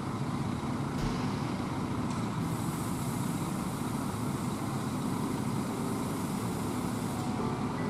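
Steady running of idling diesel bus engines, with a low even rumble of coaches standing close by.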